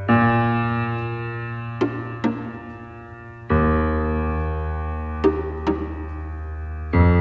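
Background music: slow, sustained keyboard chords, a new one struck about every three and a half seconds and left to fade, with a few light taps in between.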